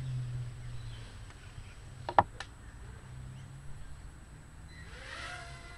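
A micro quadcopter's small motors spinning up with a short rising whine near the end, then holding a steady pitch. Earlier a low hum fades out over the first second, and two sharp clicks come about two seconds in.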